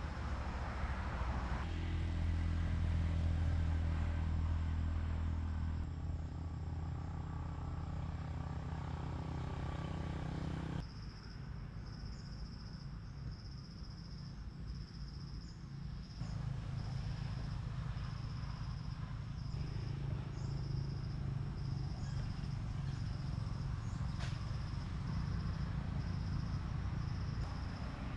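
Low rumble of motor vehicle engines running, shifting in pitch, with an insect chirping in high, regular pulses about once a second from about a third of the way in.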